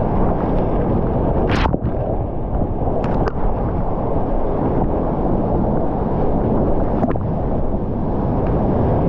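Heavy whitewater rushing and crashing around a kayak, heard as a loud, dull, steady rush close to the camera, with a few sharp clicks as water and spray strike it.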